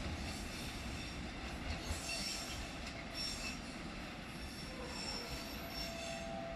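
Freight train wagons rolling away over the rails: a steady rumble of wheels on track, with faint thin high-pitched wheel squeals coming and going.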